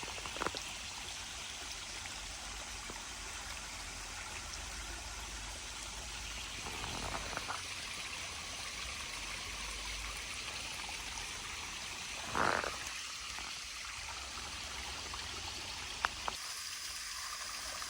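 A small waterfall and creek running, a steady rush of water. A few brief scuffs and a sharp click break in, the loudest scuff about two-thirds of the way through.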